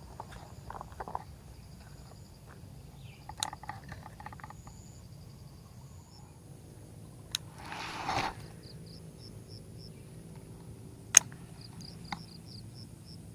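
Outdoor ambience with insects chirping in short repeated pulses over a steady low hum. It is broken by a few sharp clicks, the loudest about eleven seconds in, and by a brief rush of noise about eight seconds in.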